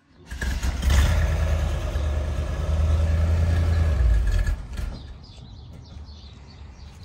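A motor vehicle engine running steadily and loudly, then dropping away to a much lower level about four and a half seconds in.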